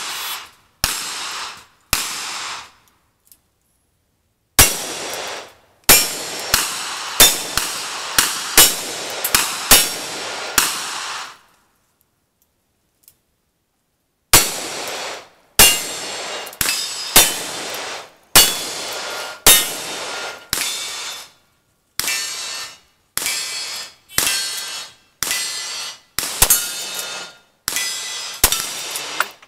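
Rapid gunshots, roughly one a second, from a single-action revolver and then a rifle, each shot followed by a short metallic ring, the clang of the steel targets being hit. The string breaks off twice, once briefly and once for about three seconds midway, then picks up again faster towards the end.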